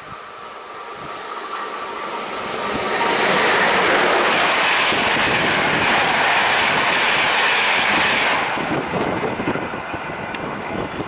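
A passenger train passing through the station at speed without stopping. The rumble builds as it approaches, becomes a loud rush of wheels on rail from about three seconds in as the coaches pass close by, then fades after about eight seconds as the train draws away.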